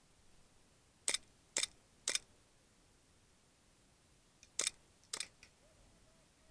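Airsoft gun shots fired singly: three sharp cracks about half a second apart, then two more a couple of seconds later.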